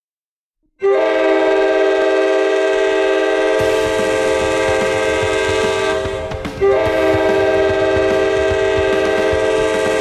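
San Diego Gulls hockey goal horn, a train-style multi-chime air horn, starting about a second in with a long loud blast of a chord of steady tones; it dips and breaks briefly a little past halfway, then sounds again in a second long blast.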